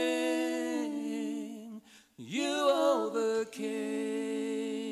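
Worship singers' voices, near a cappella, holding a long sustained note, breaking off briefly about two seconds in, then sliding through a short phrase and settling onto another long held note as the song closes.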